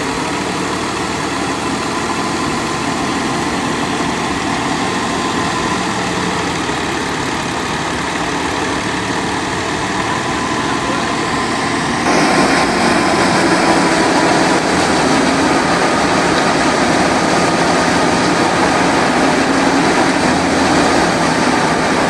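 A tractor-driven wheat thresher runs steadily while wheat is fed into it, making a constant mechanical din with a thin steady whine. About halfway through it gets louder and harsher.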